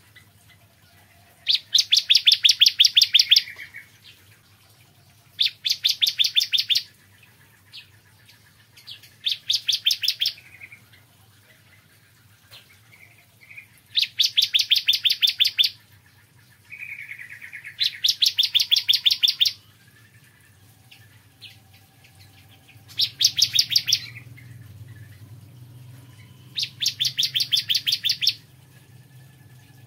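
Bar-winged prinia (ciblek kristal) singing: about seven high, fast trills of rapidly repeated notes, each lasting one and a half to two and a half seconds, with pauses of a few seconds between them.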